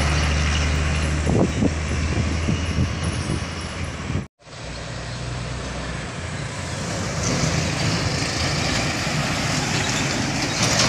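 Heavily loaded truck driving past with a low engine drone and road noise, followed by a steady rush of traffic. A few knocks sound in the first few seconds, and the sound cuts out completely for an instant about four seconds in.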